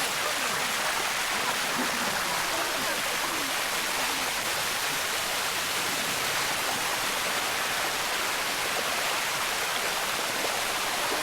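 Steady rushing of water cascading over the limestone rocks of Bua Tong (Sticky) Waterfall.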